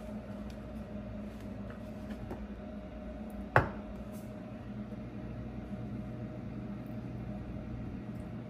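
Faint clinks and scrapes of a metal spoon spreading tomato sauce onto slices of sandwich bread, with one sharp clink about three and a half seconds in, over a steady low hum.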